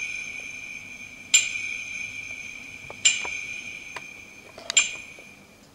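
Bell-like chime tones from the dance track's closing moments, struck twice more about a second and a half apart, each left to ring and fade slowly. A couple of faint clicks come near the end.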